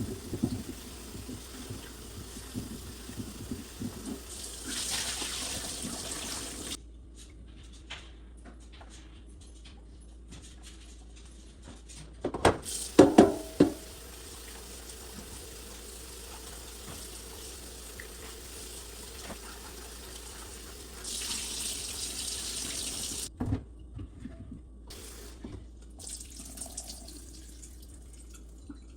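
Water running from a tap in two spells of about two seconds each, with a short burst of knocking and clatter about halfway through.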